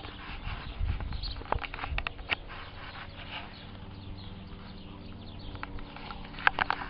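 A dog gnawing a raw meaty bone: sharp cracks and crunches of teeth on bone, a cluster of them about a second and a half in and again near the end.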